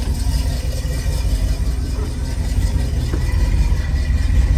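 Oldsmobile Delta 88 running, heard from inside the cabin: a steady low engine rumble with the air conditioning blowing.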